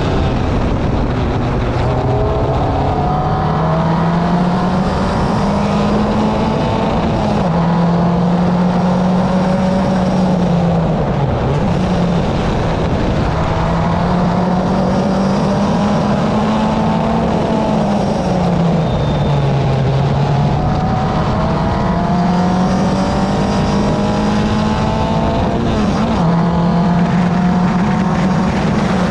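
Vehicle engine running continuously under way. Its pitch climbs and drops back several times, with sharper drops about seven seconds in, around eighteen seconds and near twenty-six seconds.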